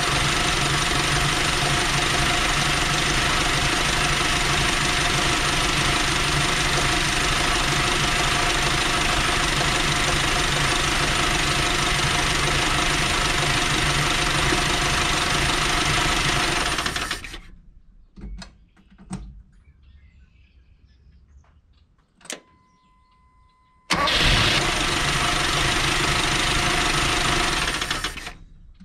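1979 Dodge D50 pickup's four-cylinder engine running steadily at idle, an engine its owners report has almost no oil pressure. It cuts off suddenly about two thirds in; after a few clicks and a short electronic beep it is running again for a few seconds and stops near the end.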